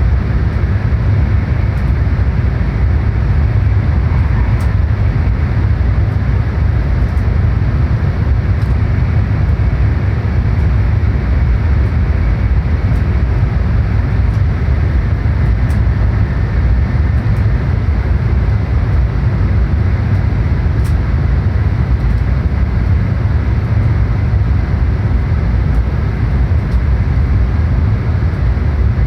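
Steady running noise of a JR Kyushu N700-series Shinkansen train at speed, heard inside the passenger car: a heavy, even low rumble with a hiss of wheel and air noise over it and a few faint ticks.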